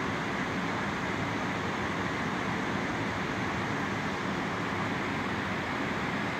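Steady rush of the Huron River's white water: an even, unbroken noise with no separate events.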